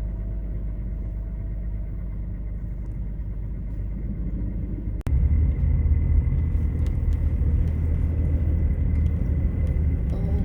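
Steady low rumble of a truck driving on a snowy road. About five seconds in there is an abrupt break, after which the rumble is louder.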